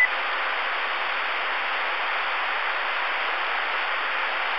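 Steady radio static hiss from an RCI-2990 ten-meter receiver.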